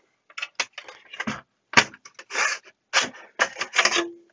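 Steel bottom cover of a bench power supply being slid out of its aluminium frame on metal sliders: a run of scrapes with sharp clicks and knocks as the chassis and panel are handled, and a short squeak near the end.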